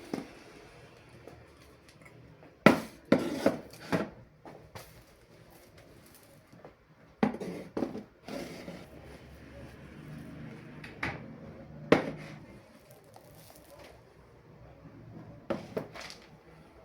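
Kitchen containers and jars being set down and moved about on pantry shelves: groups of sharp knocks and clatters a few seconds apart.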